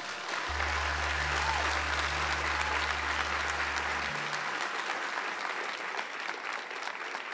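Audience applauding steadily, easing off a little toward the end. A low held note of intro music sounds under the applause for the first few seconds, then stops.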